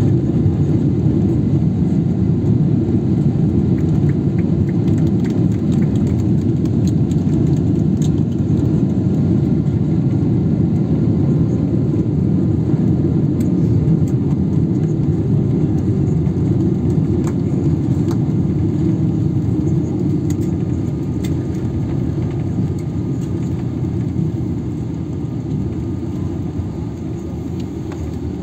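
Inside the cabin of a Boeing 777-300ER rolling out on the runway after landing: a steady low rumble of the engines and wheels, with a few faint clicks. The rumble eases slightly near the end as the airliner slows.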